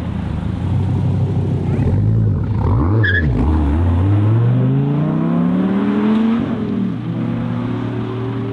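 Sports car engine accelerating hard: after a few seconds its pitch climbs steadily, drops sharply at an upshift, then climbs again more slowly in the next gear.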